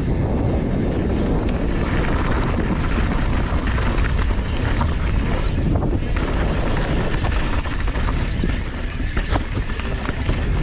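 Wind buffeting the microphone of a camera on a mountain bike descending a dirt trail, over the steady rumble of tyres rolling on dirt and rock, with scattered clicks and rattles from the bike over bumps.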